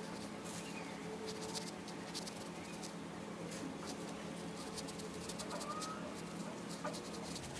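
Quiet room with a steady low hum and faint soft ticks as a makeup brush dabs pressed compact powder onto the face. A brief faint whistle-like chirp comes a little past the middle.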